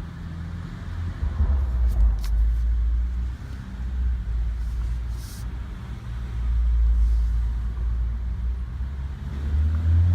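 BMW M135i exhaust: a deep engine rumble that swells and falls back as it is revved, with a few sharp pops about two seconds in.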